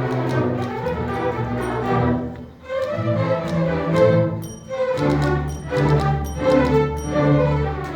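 Orchestral music led by bowed strings, with sharp percussive clicks and taps over it.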